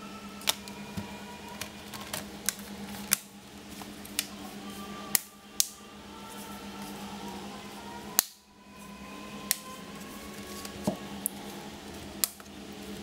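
Plastic snap clips of an Asus X452 laptop's keyboard top case clicking into place as the case is pressed down around its edges: a dozen or so sharp, short clicks at irregular intervals, over a steady low hum.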